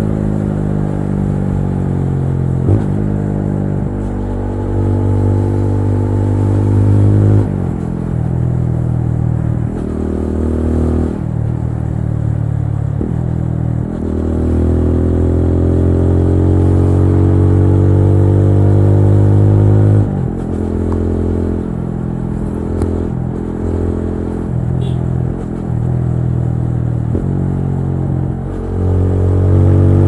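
TVS Apache RTR 200 4V's single-cylinder engine under way, revving up and dropping back in pitch at each gear change. About halfway through it climbs steadily for several seconds before a shift pulls the pitch down, and it swells louder again near the end.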